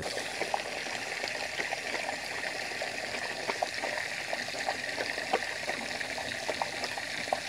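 Garden hose running a thin stream of water into a dog's water bowl, a steady splashing trickle with small irregular splashes, while an Irish Wolfhound drinks from the bowl.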